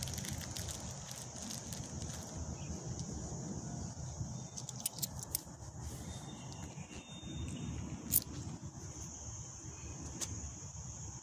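Steady high-pitched insect drone from the roadside trees, over a low rumble, with a few short sharp clicks in the middle and one louder click about eight seconds in.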